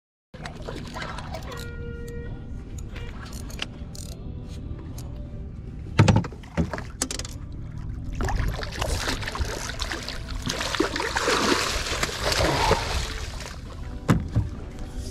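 Water splashing as a hooked king salmon thrashes at the surface beside the boat, loudest and longest in the second half. There is a sharp knock about six seconds in.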